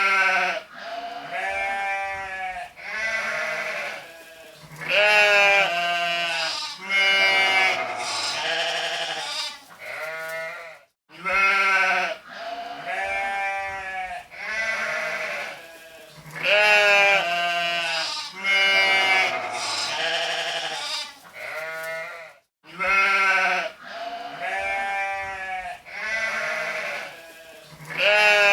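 Sheep bleating over and over, wavering calls of different pitches following and overlapping each other. The same run of bleats starts again about every eleven seconds, a looped recording.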